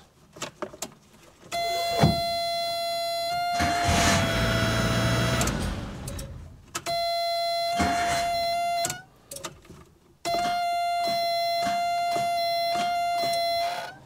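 Suzuki Samurai's ignition being tried with the key: a steady electric warning buzzer sounds in three spells, with a sharp click about two seconds in and again about eight seconds in, and a louder rushing noise from about three and a half to six seconds in. The starter still clicks instead of starting reliably, which points to poor contact inside the ignition switch.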